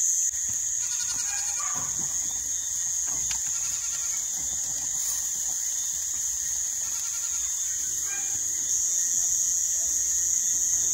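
Night-time crickets chirping in a steady, high-pitched chorus.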